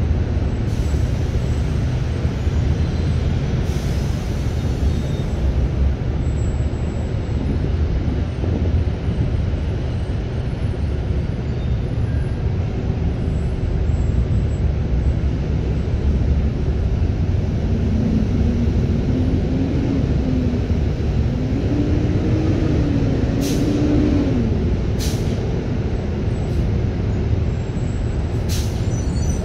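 Steady low outdoor rumble, with a faint wavering tone about two-thirds of the way through and a few short clicks near the end.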